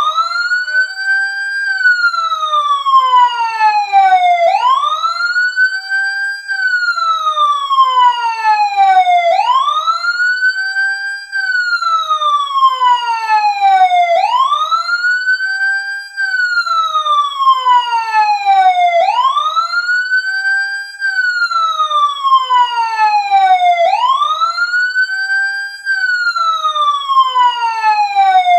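Siren ringtone: a wailing siren tone sweeps up quickly, holds briefly at the top and slides slowly back down, over and over about every five seconds.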